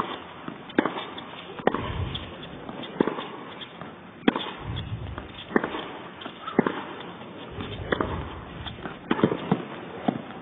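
Tennis rally: rackets striking the ball back and forth, a sharp crack about every second or so, with lighter ball bounces between them and a low crowd murmur underneath.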